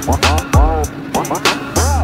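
Background music with a steady beat and a repeating melodic figure.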